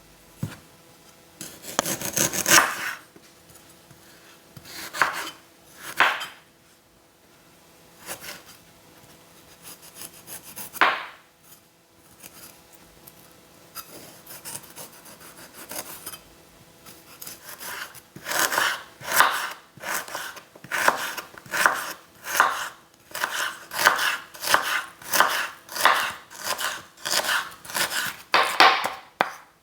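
Kitchen knife cutting vegetables on a cutting board: a few separate cuts, then from about two-thirds of the way through a steady run of strokes, about one and a half a second.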